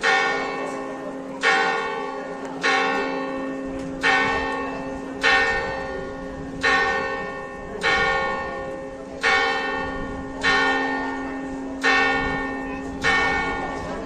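Large church bell tolling for the midday prayer: a steady, even stroke about every second and a third, eleven strikes in all, each one ringing on and fading into the next.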